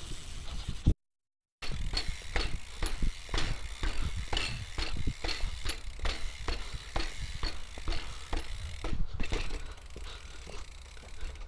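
BMX bike ridden fast over a dirt trail: tyres rumbling on the dirt, with regular sharp clicks rattling from the bike about two to three times a second. The sound drops out for a moment about a second in.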